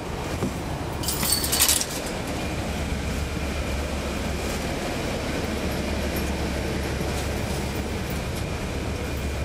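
Cummins ISL9 diesel engine of a NABI 416.15 transit bus, heard from inside the cabin, running with a steady low drone. A burst of rattling about a second in.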